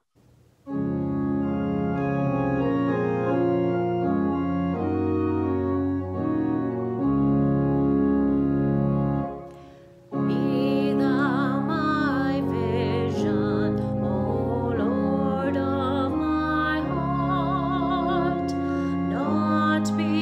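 Church organ playing a hymn in held chords. After a short break about ten seconds in, the organ comes back in and a woman's voice sings the hymn over it.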